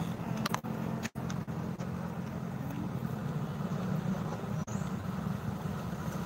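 Bus engine running steadily with a low hum, no horn sounding; the sound cuts out for a moment about a second in.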